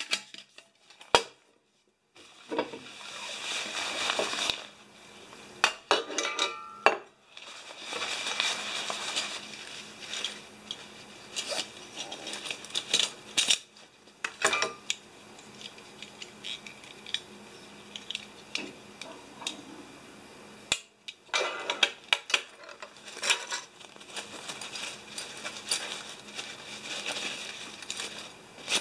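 Metal camping cookware clinking and knocking as cups, lids and pots are handled and set down on a table, with stretches of rustling from fabric stuff sacks.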